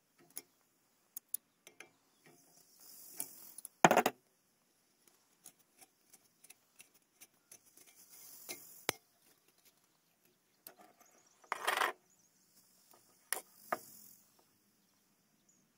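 Scattered metallic clicks and clinks of an adjustable wrench and a brass LP hose fitting being unscrewed from a gas burner, with one loud clack about four seconds in and a short scraping rattle near twelve seconds.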